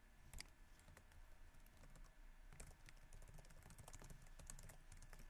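Faint typing on a computer keyboard: one louder click about half a second in, then a run of quick keystrokes.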